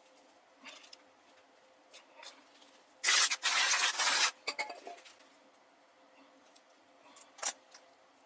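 A loud hiss of pressurised spray lasting a little over a second, with a brief break just after it starts, among a few small clicks and taps of hand tools being handled.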